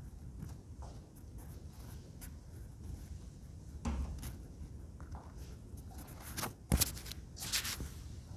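Handling noise from a phone camera carried through small rooms: a low rumble with scattered light knocks and rustles. The sharpest knock comes about two-thirds of the way in, with a rustle soon after.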